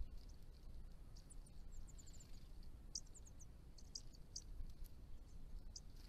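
Striated pardalotes calling: scattered short, high chips, with a quick run of about five notes a little before two seconds in, over a faint low rumble.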